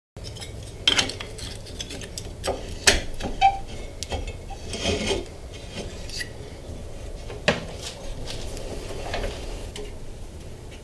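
Tools and metal parts handled on a workbench: scattered clicks, clinks and knocks with some scraping. The loudest knocks come about a second in and near three seconds in.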